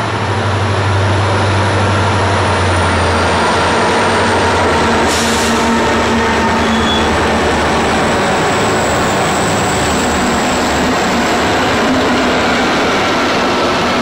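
A grain train's diesel locomotives, led by an FQ class, pass close by. A deep engine drone is strongest in the first few seconds and fades later, over the steady rumble of wheels on the rails. There is a brief sharp clank about five seconds in.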